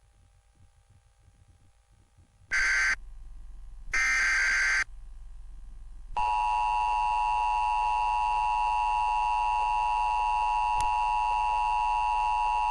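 Emergency Alert System tornado warning coming on: two short bursts of the digital header data tones about a second apart, then the EAS two-tone attention signal, a steady harsh dual tone that starts about six seconds in and holds.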